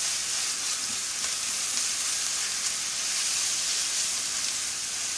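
Thinly sliced marinated beef sizzling steadily in a hot oiled skillet while a spatula stirs and breaks it up.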